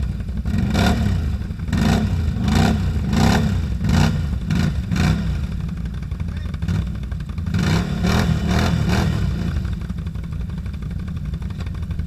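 ATV engine revving in quick repeated bursts as the rider tries to power it out of a deep mud rut where it is stuck. The bursts come thick for about five seconds, ease off, return around eight seconds in, then settle into a steadier run near the end.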